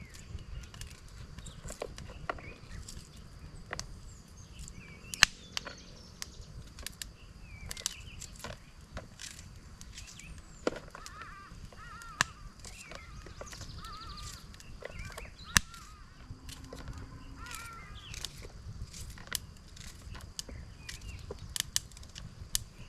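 Sharp clicks and knocks at irregular intervals, a few of them much louder, with short chirping bird calls in the middle stretch.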